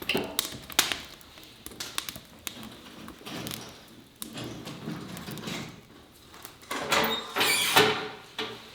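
Scattered knocks and clicks of things being handled, with a louder scraping rattle about seven seconds in.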